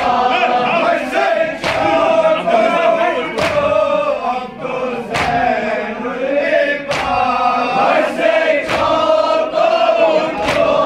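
A group of men chanting a farewell latmiyah (noha) together, with rhythmic chest-beating slaps (matam) keeping time about once a second.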